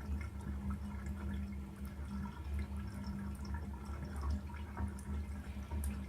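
Water dripping and trickling, with scattered small drips over a steady low hum.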